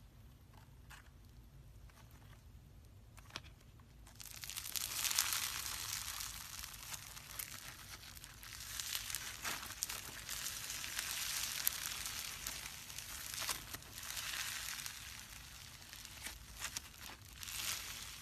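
Crunchy slime being squeezed and kneaded, giving a dense crackling, crinkling sound. A few faint clicks come first, then from about four seconds in the crackling comes in several long swells.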